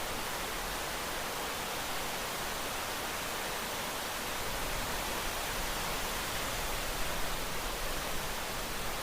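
Steady rain sound effect: an even, continuous hiss of falling rain with no single drops standing out.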